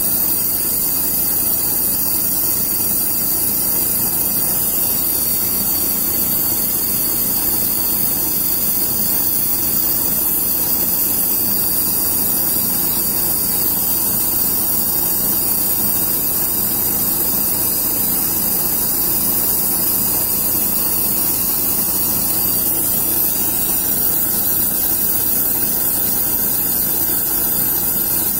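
Gas torch flame blowing against a copper lamp shade, a loud steady hiss that does not let up.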